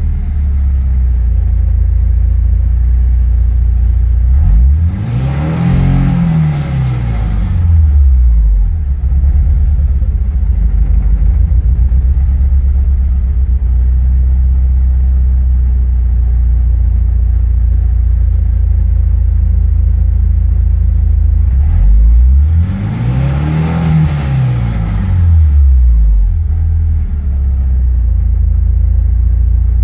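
1986 Porsche 944's naturally aspirated four-cylinder engine idling, revved up twice, about five seconds in and about twenty-two seconds in, each rev rising and falling back to idle over about three seconds. The owner says this engine misfires above about 5,000 rpm and runs roughly as the revs come back down.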